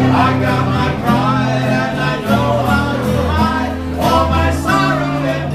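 Two men singing a song together, accompanied by a strummed acoustic guitar.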